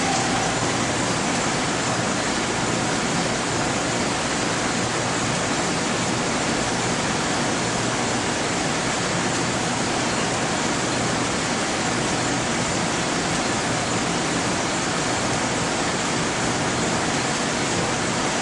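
Steady hiss and hum of laboratory equipment fans and air handling, unbroken and even in level.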